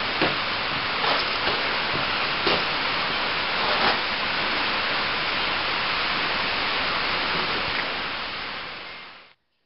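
Rain falling, a steady hiss with a few louder ticks in the first four seconds; it fades out near the end.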